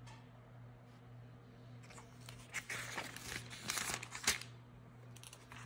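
Pages of a Thompson Chain Reference Bible being flipped by hand: a rustling, crinkling flurry of page turns starting about two seconds in, with one sharper page flick about four seconds in. A faint steady low hum runs underneath.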